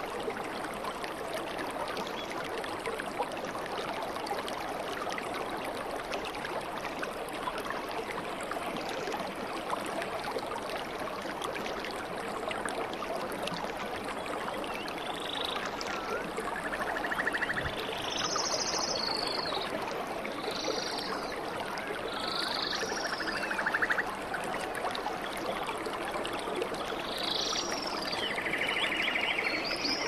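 Water rushing steadily over a small cascading waterfall into a pool. From about halfway, short high chirping calls and quick rattling trills of small animals sound every second or two over the water.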